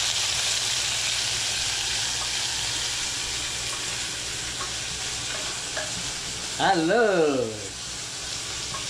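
Sliced onions sizzling as they fry in hot oil in a steel pressure cooker, stirred with a wooden spatula. The sizzle grows slowly quieter.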